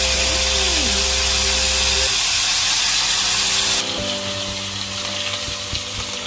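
Marinated beef pieces sizzling in oil and sauce in a nonstick frying pan over background music. The sizzle drops abruptly about four seconds in, and near the end metal tongs click a few times as the seared pieces are lifted out into a steel bowl.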